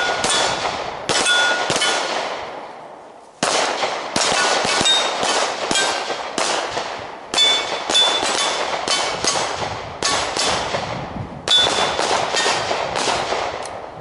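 Strings of rapid pistol shots, in about five bursts with short pauses between, with steel plate targets ringing with a clang as they are hit.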